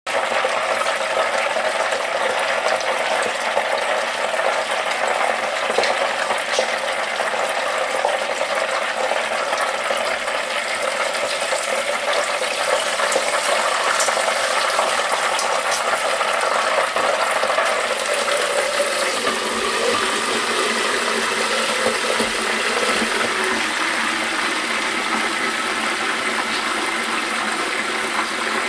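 A pork chop sizzling steadily as it deep-fries in hot oil in a Presto electric deep fryer, with a few faint clicks.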